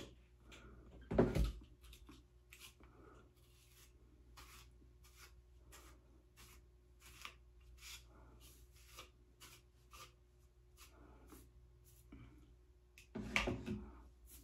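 Faint rustling and crackling of fingers working through a synthetic wig's fibres, in short irregular strokes. Two louder knocks, about a second in and near the end.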